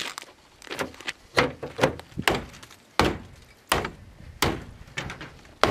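Tomahawk (SOG VoodooHawk) chopping repeatedly into a car's sheet-metal body: about ten sharp metallic strikes, roughly half a second apart, each with a short ring.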